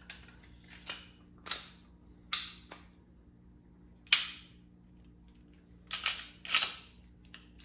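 Glock 19-pattern pistol on a Polymer80 frame being worked by hand: the slide racked and snapping forward and the trigger pulled, about seven sharp metallic clicks and snaps, the loudest about four seconds in. The pistol will not fire, a fault the owner puts down to the striker.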